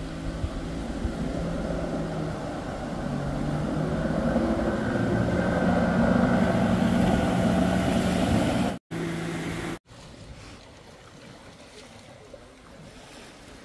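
An engine running with a steady drone that grows louder over the first eight seconds or so. It then cuts out abruptly, and a quieter, even rumble follows.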